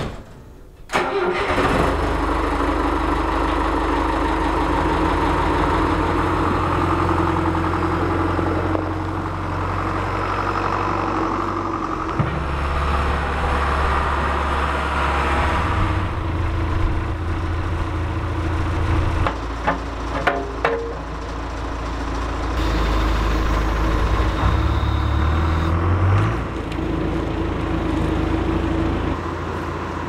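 John Deere 310SE backhoe's diesel engine starting about a second in, then running, its speed stepping up and down several times. A few knocks about two-thirds of the way through.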